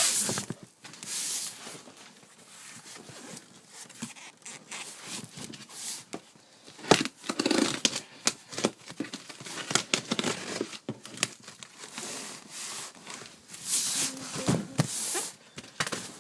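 Packaging being torn and crumpled as a shipping box is opened by hand: irregular rips and crinkles, with a sharp snap about seven seconds in.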